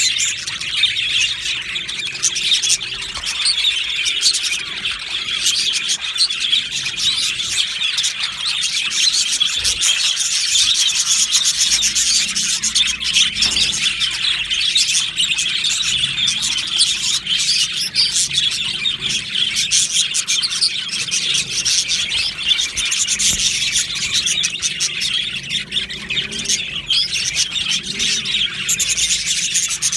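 A colony of budgerigars chattering and chirping continuously, many birds calling over one another at once.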